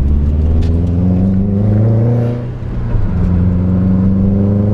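Subaru WRX turbocharged flat-four engine accelerating hard: the engine note climbs, drops briefly at an upshift about two and a half seconds in, then climbs again in the next gear.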